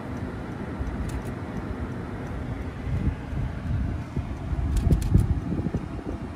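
Car rolling slowly, heard from inside the cabin: a low rumble of engine and tyres with wind buffeting the microphone, gusting loudest about five seconds in. A few faint clicks about a second in and again around five seconds.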